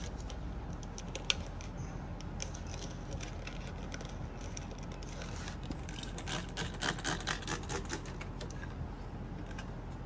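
Hand trigger spray bottle of alcohol squirted onto a car's vinyl-wrapped panel in a quick run of short sprays about six to eight seconds in, after a single click about a second in.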